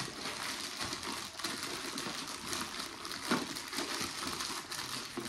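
Clear plastic product packaging and a cardboard box being handled and pushed together: a continuous crinkling rustle with many small clicks as packed items are forced back into the box.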